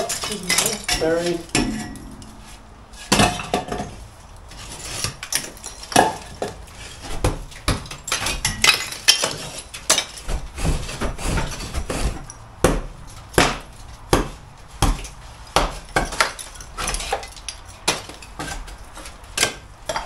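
Irregular knocks and clinks of broken concrete block pieces being pulled out of a wall opening and dropped.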